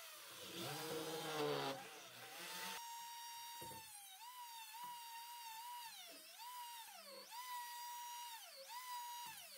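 A corded drill runs briefly in the first few seconds. From about three seconds in, a Dremel rotary tool with a sanding drum takes over with a high whine, its pitch dipping again and again as it bites into the wood to enlarge the lock hole.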